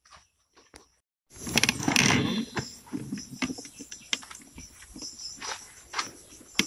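A burst of rustling, then scattered knocks and clicks from handling, over a steady high chirping of insects.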